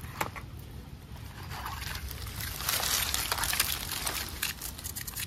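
Scratchy scraping and rustling as a stick scrapes the charred skin off grilled tilapia on banana leaves, loudest in the middle.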